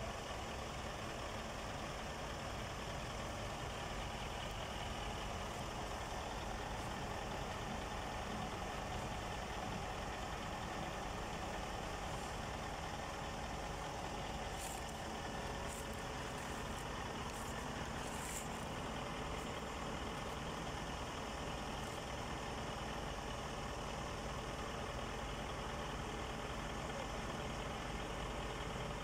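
Heavy diesel engine running steadily, with a few brief high clinks about halfway through.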